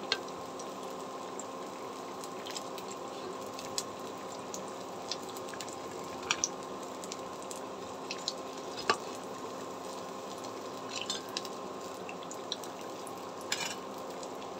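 Cauliflower chops deep-frying in hot oil: a steady sizzle broken by occasional sharp crackles and pops, over a faint steady hum.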